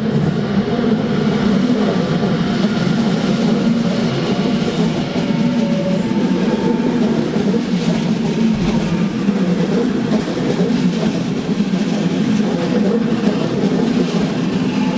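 Train running at low speed along a station platform, a steady, unbroken running noise.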